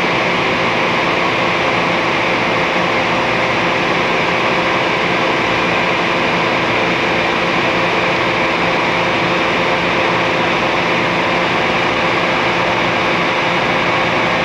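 Leadwell LTC-50BXXL CNC turning center running under power: a steady machine hum with several steady tones, holding level without changing.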